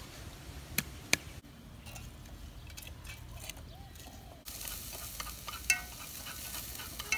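Two sharp knife strikes on a wooden chopping board, then, after a cut, a wooden utensil stirring in an aluminium pot with a sizzling hiss and light clinks.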